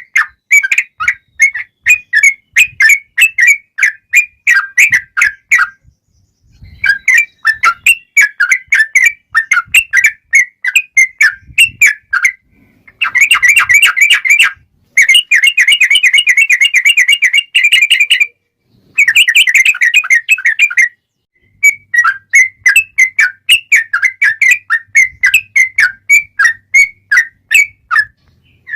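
Yellow-vented bulbul (trucukan) singing loud, fast runs of clear whistled notes, several a second, in long phrases broken by short pauses, with the densest unbroken trill in the middle. This is the long rapid 'ropel' song of a bird in fighting mood.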